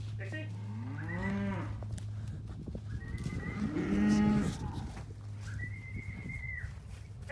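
Beef cattle mooing, several long calls one after another. A rising-and-falling call comes about a second in, the loudest and deepest moo around four seconds in, and a higher, flatter bawl near the end.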